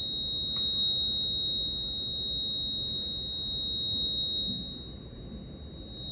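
A single steady, high-pitched electronic tone, pure like a sine wave, held over a faint low hiss: a sustained synthesizer note in an ambient music performance.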